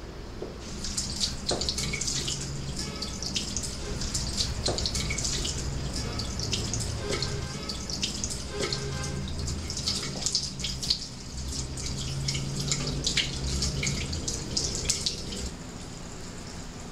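Bathroom sink tap running while hands wash and splash under it. The water starts about a second in and stops near the end.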